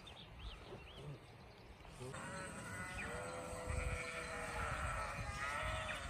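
A few faint high chirps, then about two seconds in a grazing flock of sheep starts bleating, several animals calling over one another in long, drawn-out bleats.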